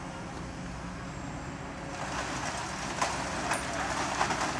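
Heavy diesel machinery running steadily; about two seconds in, an excavator bucket-load of sand and gravel starts pouring into a dump truck's bed, a rushing hiss with stones clattering.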